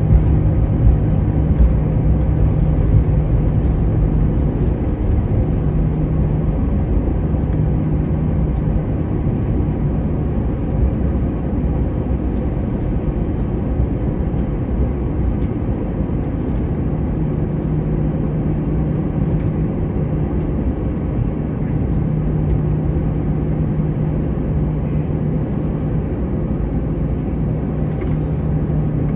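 Delta Airbus A321 rolling on the ground after landing: a steady low rumble of the idling engines and rolling wheels, with a steady hum that fades and returns.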